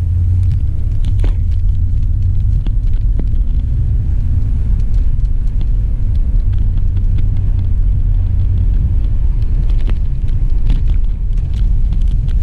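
Steady low engine and road rumble inside the cabin of a 2006 Toyota Avalon with its V6, as the car pulls away and drives.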